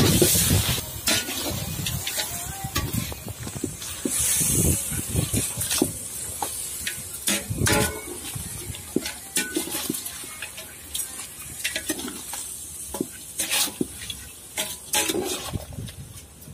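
Chicken pieces and dried red chillies sizzling in a metal pot over a wood fire, with many short sharp clicks and knocks and a brief louder hiss about four seconds in.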